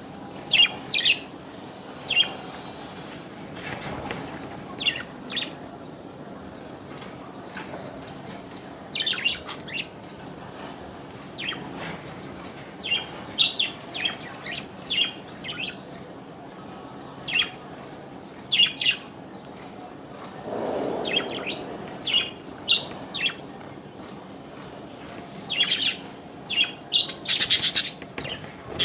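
Small birds chirping: short, high chirps come singly and in quick clusters at irregular intervals, with a denser run of chirps near the end. About twenty seconds in there is a brief low rushing noise.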